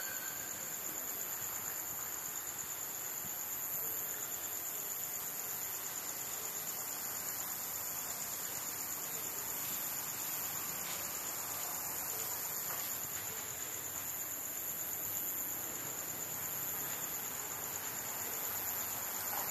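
Night insect chorus: a steady, high-pitched trill in two bands.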